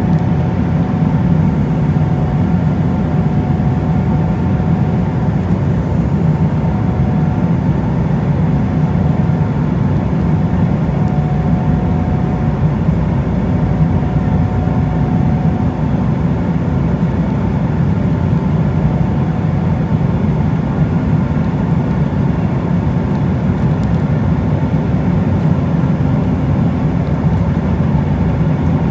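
Steady cabin noise inside an Embraer E190 airliner in flight: an even low drone of the jet engines and rushing air, with faint steady tones above it.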